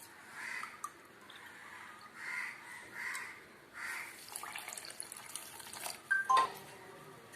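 Water being poured into a glass in a few short pours, followed by a couple of light clinks of glass with a brief ring.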